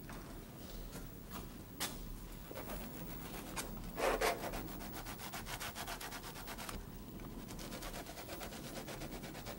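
Paintbrush rubbing and scrubbing paint onto a canvas: scattered scratchy strokes, a louder scrape about four seconds in, then a quick run of short, even back-and-forth strokes.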